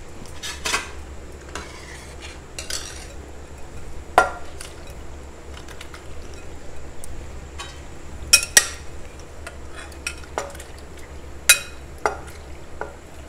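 Steel spoon clinking against a stainless steel pan and a glass bowl as cooked macaroni is spooned into simmering dal, a few sharp clinks scattered through: one about four seconds in, two close together around eight seconds, and more near the end. A low steady hum runs underneath.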